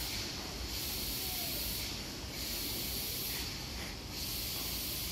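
Hissing from an Odakyu 8000 series electric train standing at the platform, swelling and fading about every second or so over a low rumble.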